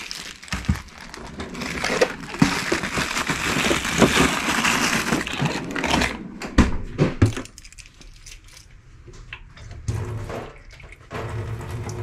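A plastic bread bag rustling and crinkling as it is handled, then a refrigerator drawer pulled open with a few sharp knocks.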